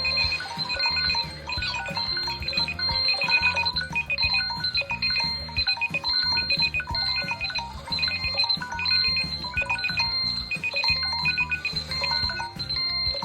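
Smartphone tone playing a repeating electronic melody of short bright notes over a bass line and beat.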